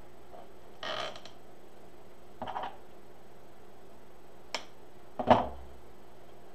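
Gold deco mesh being scrunched and fastened to a wreath-style rail by hand: a few short rustles and a sharp click, with a louder knock about five seconds in.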